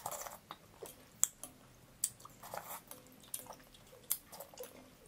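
Close-up eating sounds of lot, a dessert of green rice-flour noodles in coconut milk, taken from a metal spoon: wet slurps and chewing, with a few sharp clicks of the spoon.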